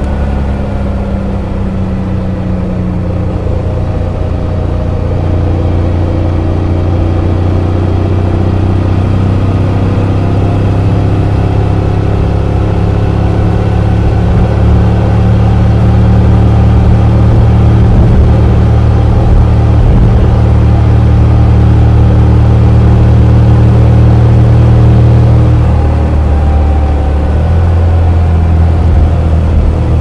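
Motorcycle engine running through a stock muffler on an Akrapovic header while riding. The engine note climbs slowly as the bike picks up speed, and it grows louder past the halfway point. Near the end it eases off briefly, then pulls again.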